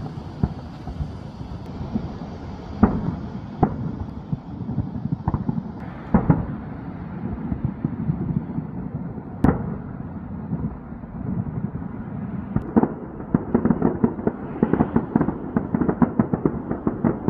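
Aerial fireworks bursting: a continuous crackle of small pops with single sharp bangs every few seconds, the loudest about halfway through. The popping grows denser and faster over the last few seconds.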